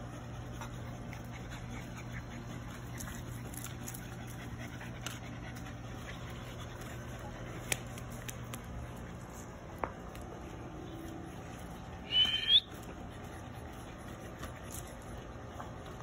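A French bulldog gives a short, high, rising yelp, two quick peaks about twelve seconds in, over a steady low hum.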